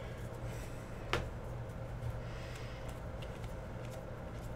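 Foil wrapper of a Panini Prizm basketball card pack crinkling as it is torn open and a stack of cards is slid out, with one sharp click about a second in, over a steady low hum.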